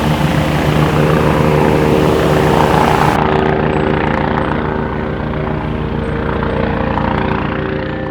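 A steady motor sound with a fast, even chopping rhythm, under a loud hiss whose upper part cuts off suddenly about three seconds in.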